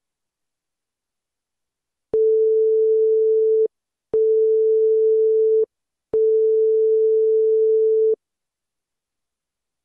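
Three identical long electronic beeps at one steady mid-range pitch, each about a second and a half long and starting two seconds apart, with a click as each one starts and stops.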